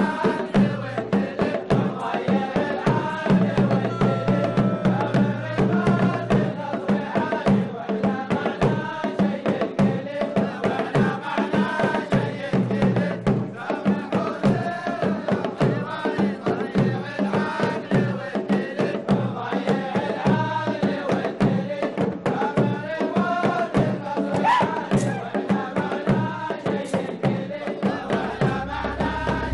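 Traditional Omani men's wedding song: a group of men chanting together over fast, steady drumming.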